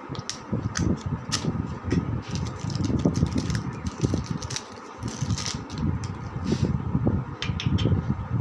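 Irregular metallic clicks and knocks as ball bearings are handled and fitted into a ceiling fan's cast cover plate, over a steady faint hum.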